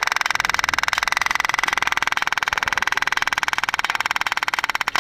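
The motorcycle's electric fuel pump ticking rapidly and steadily, a fast run of sharp clicks that slows to a few clicks a second right at the end. The rider takes the racing pump for one that is failing or has overheated.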